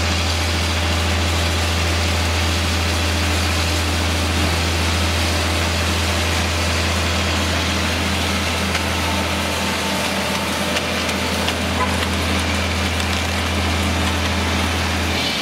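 Diesel engine of a concrete pump truck running steadily at a concrete pour, a constant low hum that cuts off just before the end.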